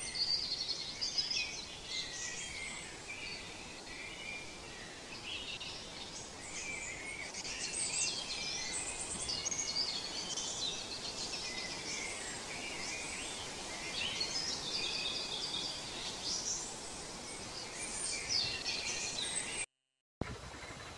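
Several songbirds singing and chirping over steady background noise. The sound cuts out completely for about half a second near the end.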